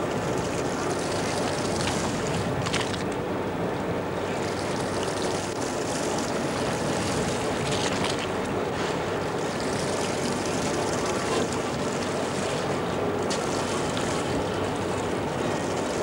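Steady wash of wind and choppy waves alongside a fishing boat, with the boat's engine running underneath and wind buffeting the microphone.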